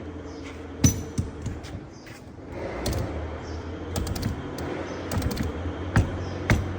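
A handful of sharp, irregularly spaced metal clicks and knocks from an FAW JH6 truck gear shift lever assembly worked by hand, the lever springing back to neutral on its automatic return spring. A steady low hum runs underneath.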